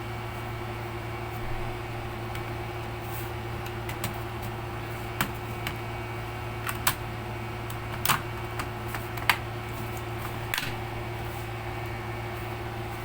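Scattered sharp plastic clicks and taps as laptop parts are handled and fitted back together during an SSD upgrade, over a steady low electrical hum.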